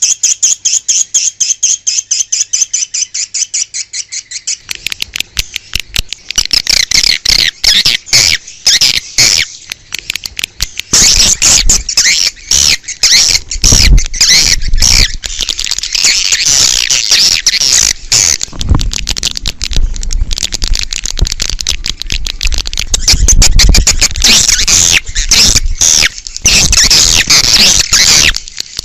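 Swiftlet calls from a swiftlet-house lure recording, a rapid chattering of chirps. The chirps come in an even train for the first few seconds, then many birds overlap densely from about six seconds in, with a few low thumps.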